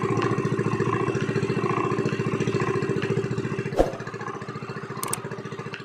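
Small gasoline engine of a bangka fishing boat running steadily with a fast, even beat. A thump comes about two-thirds of the way through, after which it runs quieter.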